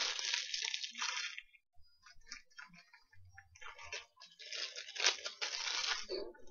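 Crinkly plastic wrapper of a honey bun being worked open by hand, crackling in fits and starts. It is loudest and densest about five seconds in.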